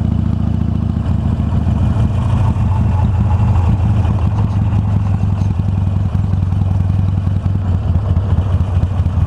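Harley-Davidson Iron 883's air-cooled V-twin engine running steadily while riding at road speed.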